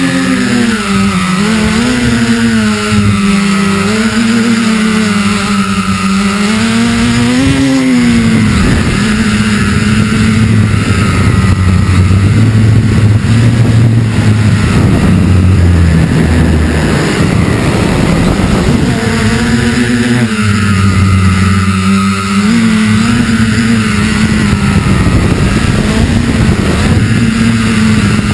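Electric motors and propellers of an FPV multirotor drone, heard through its own onboard camera: a steady buzzing whine that wavers up and down in pitch as the throttle changes. About eight seconds in the whine drops lower under a louder rushing noise, and the higher wavering whine comes back after about twenty seconds.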